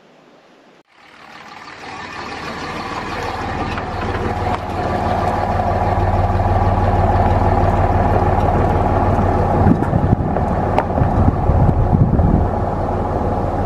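Pickup truck carrying a truck camper, driving slowly on a gravel road: a steady engine drone starts about a second in and grows louder over the next few seconds. A few sharp ticks from the gravel come near the end.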